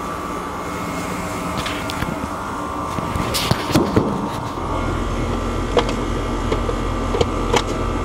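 Air conditioning equipment running with a steady hum. About four and a half seconds in, a deeper low hum comes in and keeps going. Several sharp clicks and taps are heard over it.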